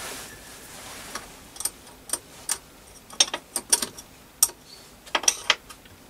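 A spanner working the top locking nut on the jacking screw under a Myford ML7 lathe bed, loosening it so the bed can be adjusted: about a dozen sharp metallic clicks and clinks at irregular intervals.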